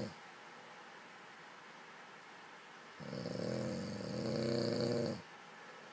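A person snoring: the end of one snore right at the start, a quiet gap of about three seconds, then one long snore of about two seconds.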